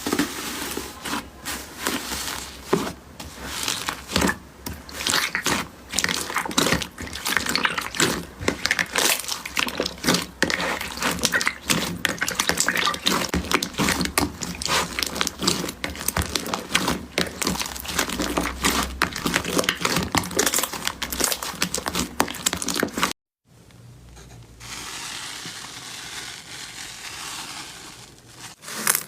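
Slime being squeezed and worked by hand, giving a dense run of crackles and small popping clicks. About 23 seconds in it cuts off abruptly, leaving a few seconds of quieter soft hiss before the crackling starts again near the end.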